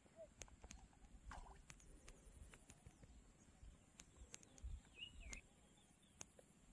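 Near silence: faint outdoor ambience with scattered small ticks and a few faint bird chirps, the clearest a pair of higher chirps about five seconds in.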